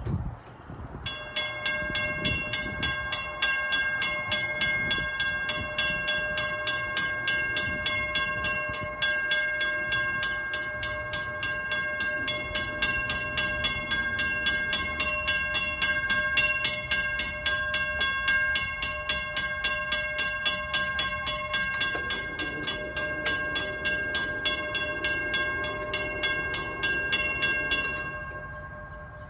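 Mechanical railroad crossing bell ringing with rapid, even strikes, about four a second, each leaving a steady ringing tone. It starts about a second in and stops shortly before the end.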